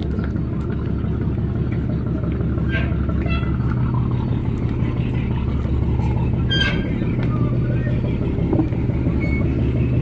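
Passenger boat's engine running at the jetty, a steady low drone, with scattered voices of people boarding.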